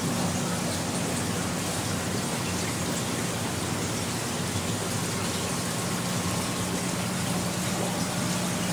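Aquarium aeration and water movement in a fry tank: a steady rushing hiss over a low, constant hum.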